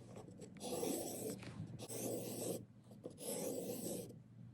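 A steel butcher-knife blade being stropped on a 28-micron strop: three even rubbing strokes, each a little under a second long, with short pauses between them.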